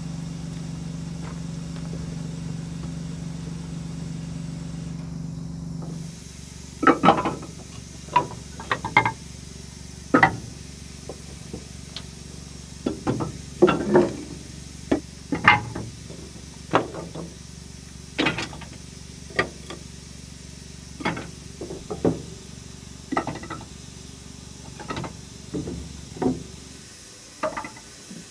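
Split wooden blocks being handled and loaded into the firebox of a steam locomotive being fired up: a string of sharp, irregular wooden knocks and clunks, roughly one a second, over a faint steady hiss. For about the first six seconds a steady low hum is heard instead, and it stops suddenly.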